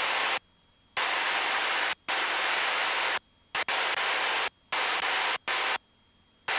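Even hiss of a Cessna's in-flight cabin noise heard through the headset intercom, cutting off abruptly to near silence several times as the intercom squelch gates it, the longest gaps about half a second in and near the end.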